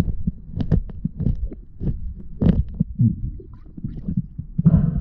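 Muffled, irregular low thumps and knocks, with a few sharper clicks, as heard through an action camera's waterproof housing underwater.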